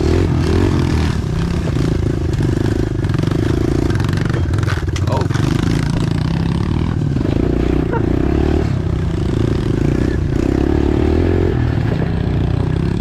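Pit bike engine running as the bike is ridden along a dirt trail, the throttle opening and easing every second or two. Rattles and knocks from the bike come through over the rough ground around the middle.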